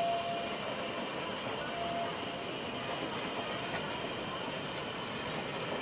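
Narrow-gauge steam locomotive and its train approaching at low speed, a steady distant running noise. A thin steady tone sounds briefly at the start and again about two seconds in.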